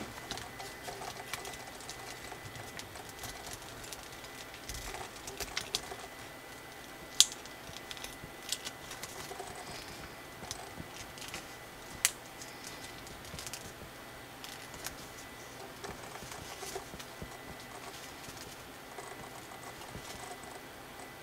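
Sheet of origami colour paper being creased and pinched into shape by fingers: light crinkling and rustling with scattered crisp clicks as folds snap flat. Two sharper snaps stand out, about seven and twelve seconds in.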